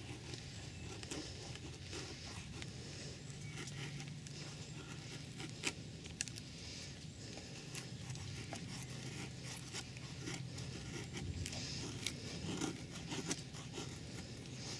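Knife blade shaving thin curls down a wooden stick to make a feather stick: repeated short scraping strokes, with two sharper clicks about six seconds in.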